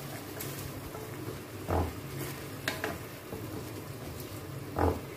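Wooden spatula stirring a simmering chicken sauce, thickened with cornflour, in a nonstick pan, with a few light clicks and two short thuds, about two and five seconds in, over a low steady hum.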